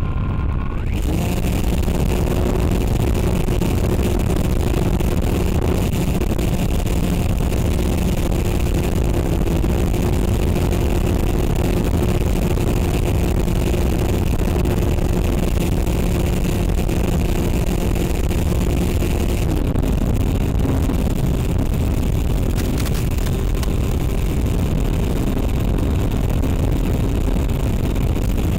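Electric motor and propeller of an FPV model aircraft in flight, droning steadily over a heavy rush of wind. The drone drops in pitch about two-thirds of the way through.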